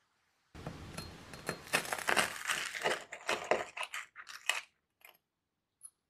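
Chef's knife sawing through a slice of toasted whole-wheat bread on a wooden board. The crust crunches densely for about three seconds, then gives a few separate crunches, stopping about five seconds in.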